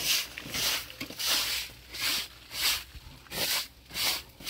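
Rhythmic scraping or swishing strokes, about three every two seconds, evenly paced like a hand working back and forth over a surface.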